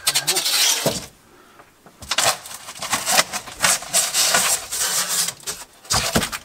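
Foil-faced foam insulation panels being pulled out and set down, scraping and rubbing against the foil-lined walls with crackles and knocks. There is a short lull about a second in.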